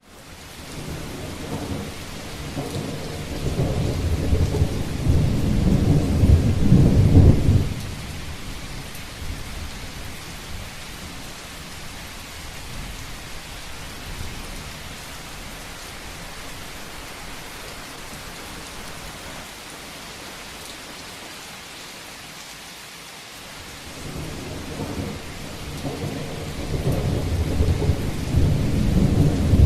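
Steady heavy rain drumming on a roof, with two long rolls of thunder. The first builds over several seconds and breaks off abruptly about eight seconds in; the second swells up near the end.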